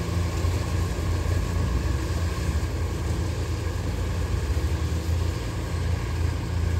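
Kubota DC105X combine harvester's diesel engine running steadily under load while cutting rice, a constant low drone.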